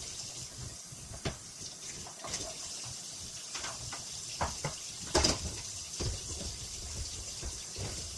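Tap water running while the plastic detergent-drawer pieces are washed under it, with several sharp clacks and knocks of plastic, the loudest about five seconds in. The audio is sped up to double speed.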